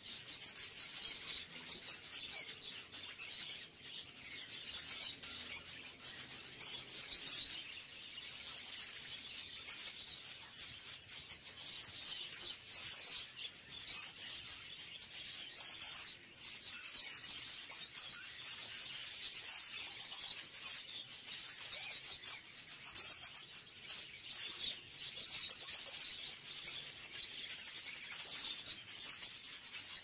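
Many small caged birds chirping and chattering at once, a dense, unbroken twittering.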